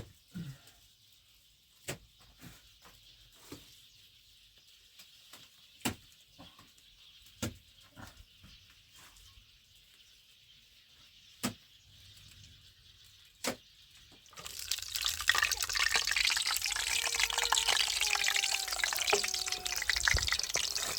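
Scattered small clicks and knocks, then about two-thirds of the way through a loud sizzle of frying starts suddenly and carries on.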